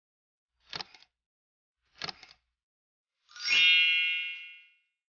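Video-editing sound effects: two brief swishing hits, then a bright chime that rings out about three seconds in and fades away over about a second and a half.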